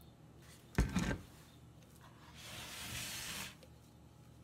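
A single knock about a second in, then about a second of soft rustling hiss as crushed dried chili pepper is poured from a small mixer cup into a plastic bowl.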